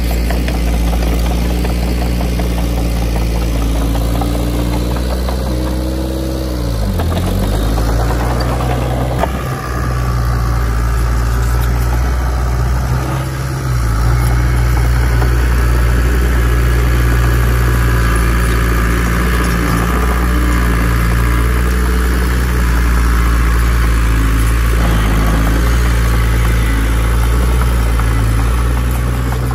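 Heavy diesel engine of a bulldozer running steadily. About seven seconds in, its pitch dips sharply and climbs back, and from about halfway it runs on a little louder.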